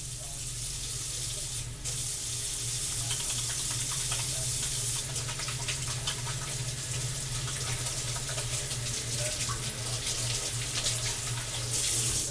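Kitchen tap running into a sink while hands are rinsed under it, a steady rush of water that is shut off at the end.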